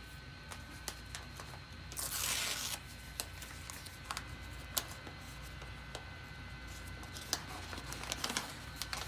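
Small clicks and rustling from things being handled, with one brief, louder rustle about two seconds in, over a steady low hum.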